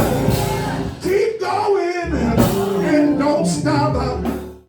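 Music with singing over it, cutting off suddenly near the end.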